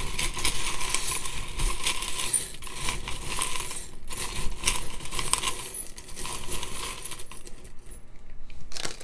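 A glass jar full of small trinket charms being stirred and jostled by hand, the charms rattling and clinking against each other and the glass. It is a dense clatter that thins out near the end, with one sharper clack as it finishes.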